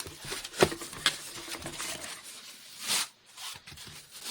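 Cardboard box and packaging handled as a boxed power supply is taken out: irregular rustling and scraping, with a sharp knock about half a second in and a louder rustle near three seconds.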